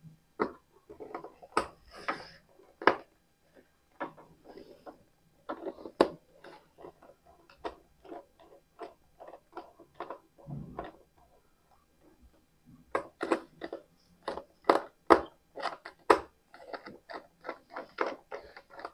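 Irregular clicks, taps and scrapes of stripped wires and a screwdriver being worked at the screw terminals of a plastic DIN-rail automatic transfer switch, with a denser run of sharper clicks about two-thirds of the way in.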